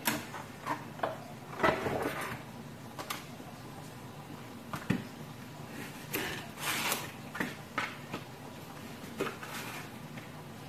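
Kitchen knife chopping zucchini on a cutting board: irregular knocks of the blade against the board, a dozen or so, some in quick clusters.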